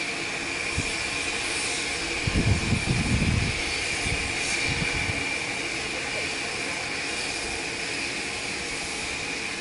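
Water gushing from the overflowing tender of Merchant Navy class steam locomotive 35006 and splashing onto the track, heard as a steady hiss. A cluster of low thumps comes about two seconds in and lasts a second or so.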